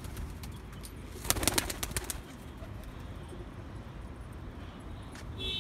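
Pigeons cooing in a loft, with a rapid clatter of clicks lasting under a second about a second in. A harsh, high bird call starts right at the end.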